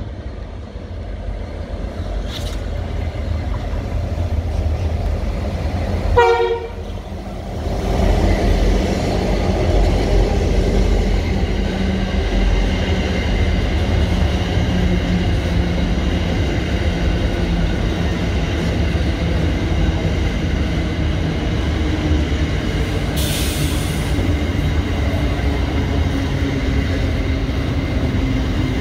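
Aurizon diesel freight locomotives hauling empty coal wagons: one short horn blast about six seconds in, then the steady rumble and clatter of the empty coal wagons rolling past.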